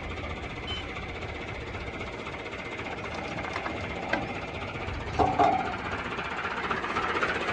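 Massey Ferguson 385 tractor's four-cylinder diesel running steadily under load while it drives a mustard thresher, the engine and thresher making one continuous, dense mechanical clatter.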